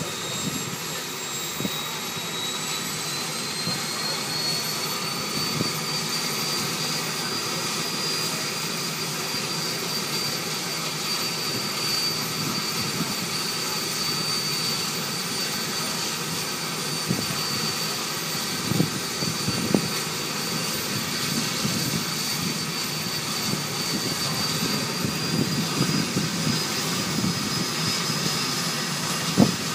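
Pilatus PC-6 Turbo Porter's turboprop engine running on the ground just after start, a high turbine whine rising over the first several seconds and then holding steady at idle. A few short knocks sound about two-thirds of the way through and again near the end.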